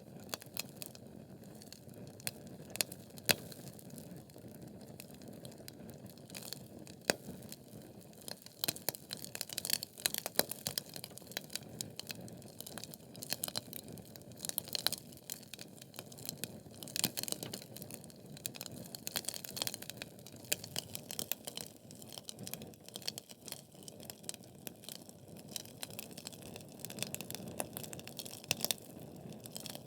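Wood logs burning in a fireplace: a steady run of crackles and sharp pops over the low, soft noise of the flames, with the pops coming thickest in the middle stretch.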